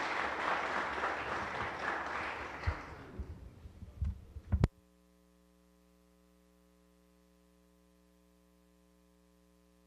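Audience applause fading away over about four seconds, ending in one sharp thump, then a faint steady electrical hum.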